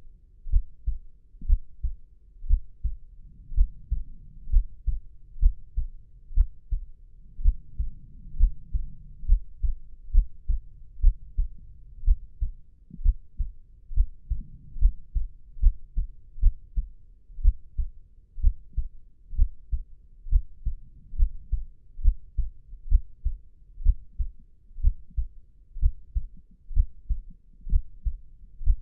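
Human heartbeat, a steady, regular rhythm of low, muffled lub-dub thumps.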